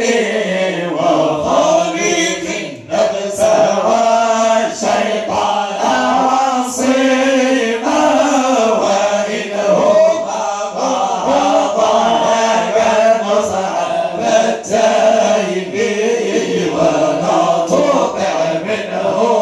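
A group of men chanting a Moroccan religious praise song (madih) together in unison, as one continuous sung line with long held notes.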